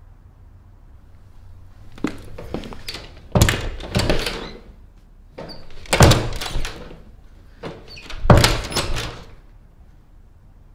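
Closet door banging: four bouts of heavy knocks starting about two seconds in, the loudest about six and eight seconds in.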